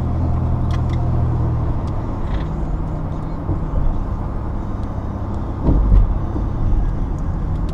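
Engine hum and tyre noise of a moving vehicle heard from inside the cab, with a low thump about six seconds in.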